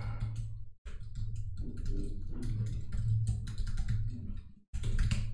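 Typing on a computer keyboard: a fast, uneven run of key clicks that breaks off briefly just under a second in and again near the end.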